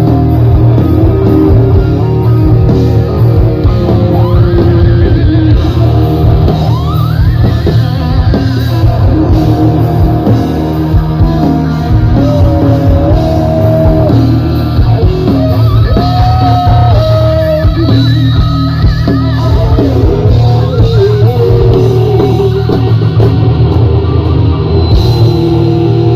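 Rock band music: electric guitar and drum kit over heavy bass, with a wavering melodic lead line on top.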